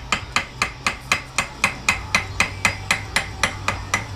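Rapid, even hammer strikes, about four a second, driving the pressed-in steel pistons out of a cast-aluminium brake caliper.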